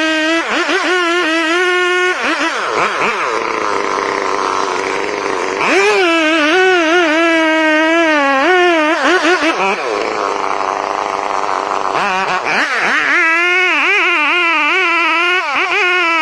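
Chainsaw engine running at high revs with a wavering pitch, as when it is working through wood. It twice drops off and revs back up.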